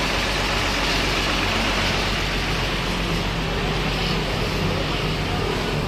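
Large bus engine idling steadily, a low even hum under general traffic noise.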